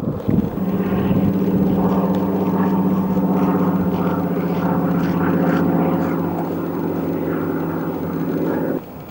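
Portable engine-driven water pump running steadily at constant speed, an even drone, while it pumps water out of the barge. It cuts off abruptly near the end.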